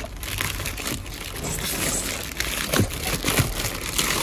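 Plastic bags and packaging crinkling and rustling as a gloved hand rummages through bagged produce and trash, with two dull knocks about three seconds in.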